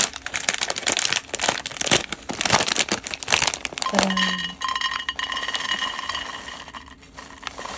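Plastic packaging of a bag of mini marshmallows crinkling and crackling as it is handled, then the marshmallows pouring out of the bag into a ceramic bowl with a soft rush that fades. A brief low hum comes about four seconds in.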